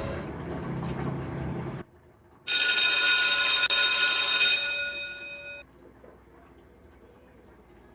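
A noisy stretch cuts off sharply just under two seconds in. After a short gap, a loud, bright ringing tone like a telephone bell sounds for about two seconds, with a brief break in the middle, then fades out.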